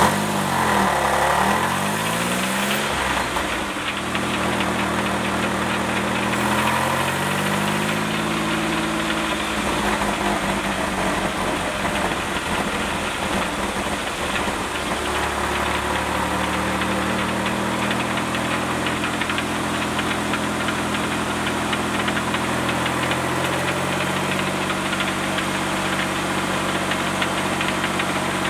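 GM Series II 3800 V6 running in a mid-engine Pontiac Fiero, heard from under the car. Its revs dip and climb in the first few seconds and again around six to eight seconds in, then hold steadier. A rattle runs alongside that the owner says comes from the Getrag 282 transaxle and is not in time with the engine, and the muffler rattles too.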